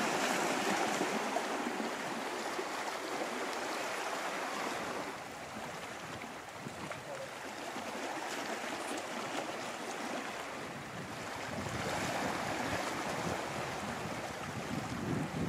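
Small sea waves washing against a rocky shoreline, a steady rushing wash that swells at the start and again near the end, with some wind on the microphone.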